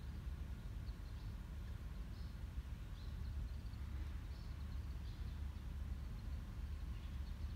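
Outdoor ambience: a steady low rumble with faint, scattered short bird chirps.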